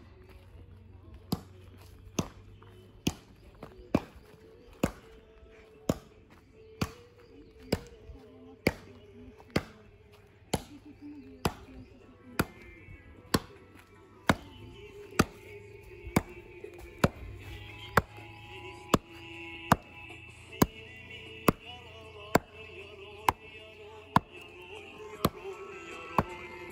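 Background music built on a sharp, even knock about once a second, with a melody coming in around halfway.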